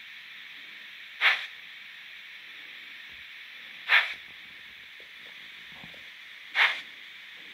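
Sound decoder of a Fleischmann HO-scale BR 18 steam locomotive model, played through its small loudspeaker: a steady steam hiss broken by three short, loud steam chuffs about two and a half seconds apart.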